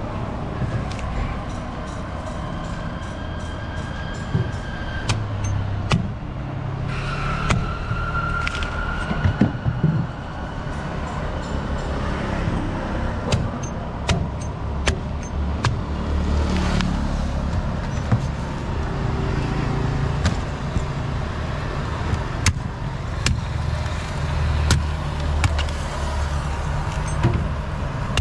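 Large knife cutting and trimming palmyra palm fruits, giving sharp knocks and clicks at irregular intervals, over a steady low rumble of road traffic.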